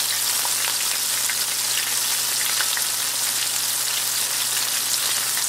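Buttermilk-battered squirrel pieces deep-frying in hot oil in a cast-iron skillet: a steady sizzle full of tiny crackles and pops. A faint low hum runs underneath.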